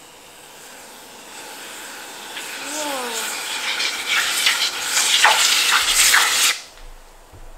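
Aerosol freeze spray hissing out through its thin straw into a glass bowl, building louder and sputtering, then cutting off about six and a half seconds in.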